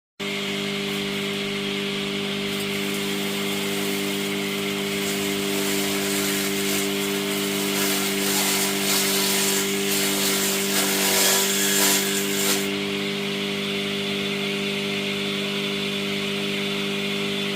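Vegetable-cutting machine running with a steady motor hum. From a few seconds in until about two-thirds of the way through, a rough shredding noise rises over the hum as vegetables are cut, then stops abruptly, leaving the motor running on alone.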